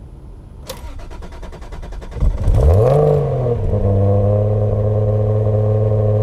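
Single-turbo Toyota Supra 2JZ inline-six starting through a Blitz Nur-Spec exhaust. The starter cranks for about a second and a half, then the engine catches, flares up in revs and drops back to a steady idle.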